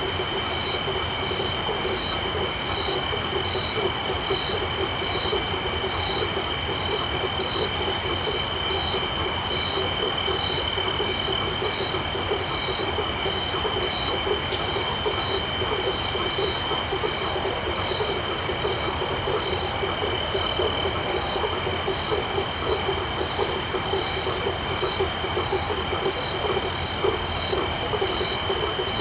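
Tropical night chorus of crickets and frogs. High steady insect trilling with a chirp repeating a little more than once a second sits over a dense, fast-pulsing frog chorus lower down, all unbroken throughout.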